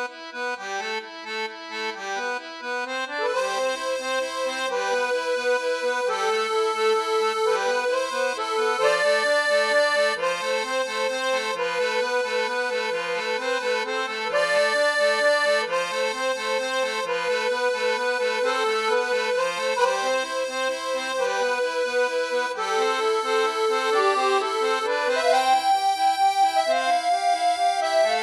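Background music: a lively melody over a repeating, steady accompaniment.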